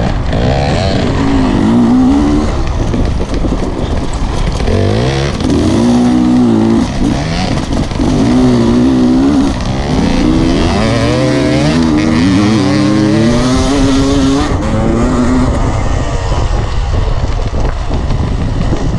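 Off-road dirt bike engine heard from on board, revving up and falling back again and again as it rides a dirt trail, with wind noise over the microphone. After about fifteen seconds the engine note steadies.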